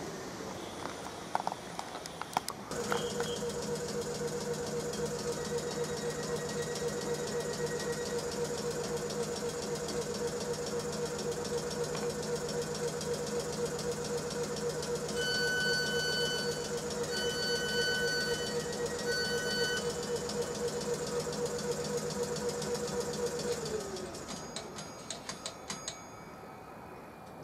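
A South Western Railway suburban electric train standing at the platform, its on-board equipment giving a steady humming drone that winds down near the end. Partway through there are three runs of short beeps, and after the hum stops a few clicks follow.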